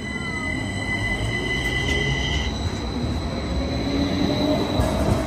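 Tacoma Link light-rail car running by, its steel wheels squealing on the rails in steady high tones over a low rumble. The lower squeals stop about halfway through, and a higher one goes on nearly to the end.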